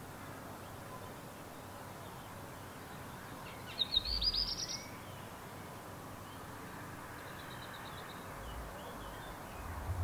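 An Old World flycatcher sings one short, quick phrase of high rising notes about four seconds in. A fainter high trill follows a few seconds later, over a steady background hiss.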